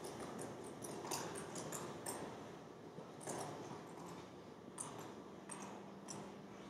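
Faint, irregular clicking of keys being typed on a laptop keyboard.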